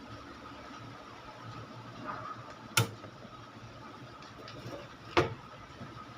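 Two sharp clicks about two and a half seconds apart, over a faint steady hum with a thin high tone.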